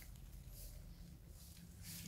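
Faint rustling of dry leaf litter, a couple of soft brushes about half a second in and near the end, over a low steady rumble.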